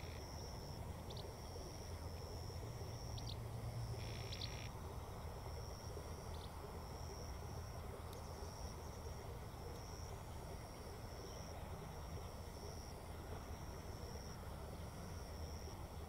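A cricket chirping over and over, a high chirp about once a second, over a steady low background rumble, with a few brief faint calls in the first several seconds.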